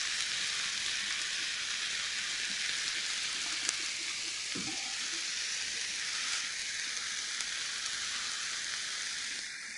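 Skewered meat kebabs with onion and bell pepper sizzling on a hot grill, a steady frying hiss.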